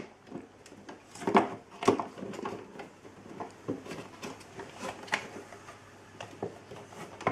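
Scattered clicks and light knocks of hands handling the Gaggia Brera coffee machine's grinder and bean hopper, the loudest bunch about one and a half seconds in; the grinder itself is not running.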